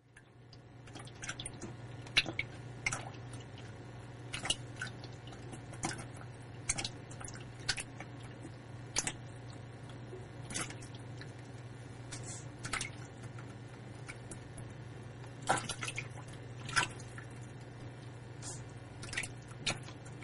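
American bullfrog splashing in a shallow bowl of water as it feeds on feeder fish: small, irregular splashes and drips, one every second or so, over a steady low hum.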